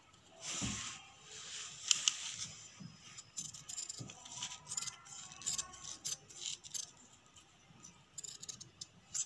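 Metal scissors snipping through a paper blouse-neck pattern: irregular short snips and clicks of the blades, with paper rustling as it is turned.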